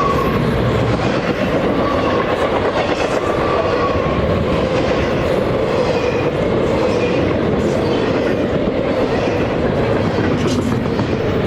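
Long Norfolk Southern intermodal freight train rolling steadily past, with wheels clicking over rail joints and a continuous rumble. Faint, brief wheel squeals come and go.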